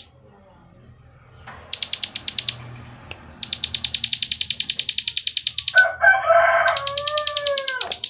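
Prinia (prenjak) giving its rapid dry clicking call, about ten clicks a second, in two runs after a short quiet start. About six seconds in a rooster crows, the loudest sound, its call falling away at the end.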